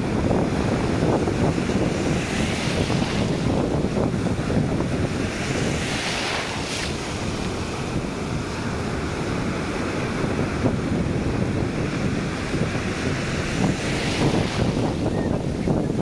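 Small waves breaking on a sandy beach and washing up the shore in foamy sheets: a continuous rushing of surf that swells into a brighter hiss about three times as waves break. Wind rumbles on the microphone underneath.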